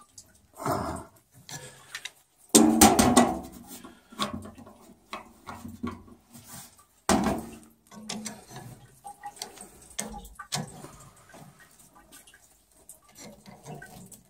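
Tongue-and-groove pliers clinking and scraping on a rusted, stuck automatic air vent fitting on a boiler expansion tank as it is wrenched at, with irregular metal knocks. There are a couple of louder sounds about three and seven seconds in.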